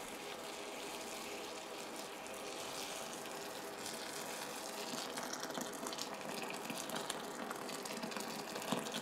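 Boiling water poured in a steady thin stream into a pot of large white beans, splashing onto the beans as the pot fills; it gets a little louder about halfway through.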